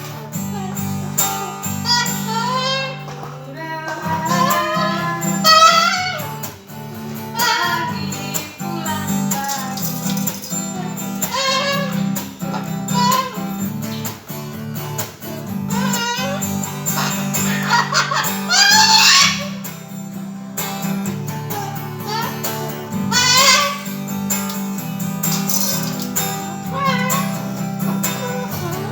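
Cockatoo vocalising in wavering, rising and falling calls over strummed guitar chords.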